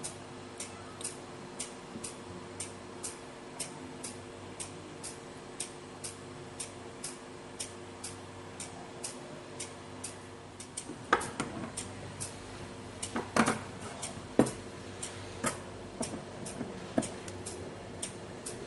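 Light, even ticking about twice a second over a steady low hum, with louder irregular clicks and knocks from about eleven seconds in.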